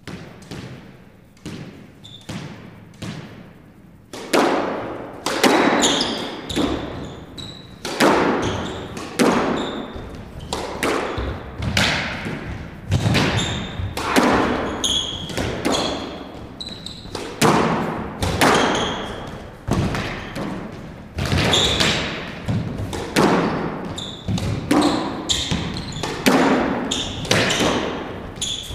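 A squash rally. The ball gives a few softer, evenly spaced knocks, then from about four seconds in comes a steady run of loud strikes as it is hit by rackets and smacks off the walls and floor, every half second to a second, with an echo after each. Short high squeaks of court shoes on the wooden floor come between the strikes.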